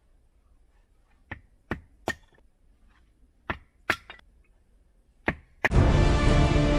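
Seven sharp wooden knocks, in twos and threes, as firewood is chopped or split into kindling by hand. Loud music cuts in suddenly near the end.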